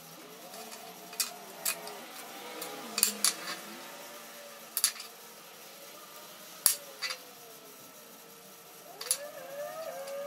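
Aviation tin snips cutting thin sheet metal: a series of sharp metallic snips and clicks at irregular intervals as the jaws bite and close through the sheet.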